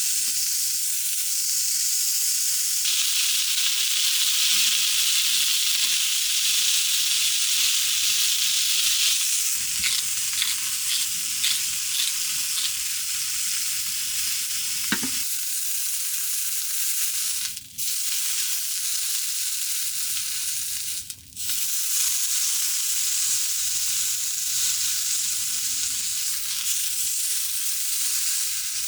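Food sizzling in a hot pan, a steady hiss that breaks off briefly twice in the second half.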